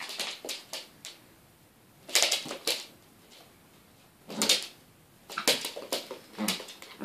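Two Yorkshire terriers play-fighting: several short bursts of scuffling with claws skittering on a wooden floor, separated by brief pauses, the loudest about two seconds in and about four and a half seconds in.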